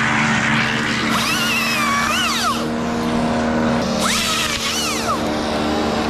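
Chainsaw revved up and back down twice, each rev a rising and falling whine, over steady background music.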